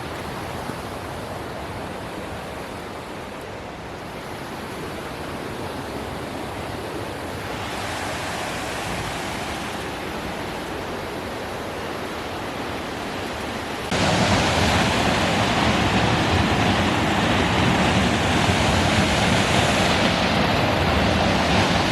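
Steady rushing roar of a waterfall. It becomes brighter about a third of the way in, then jumps suddenly louder about 14 seconds in, as if heard from much closer.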